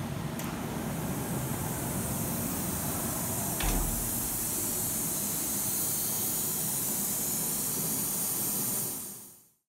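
Axile C6 CNC machining centre running, with a steady hiss of coolant spray over a low rumble and a single thump partway through. The sound fades out just before the end.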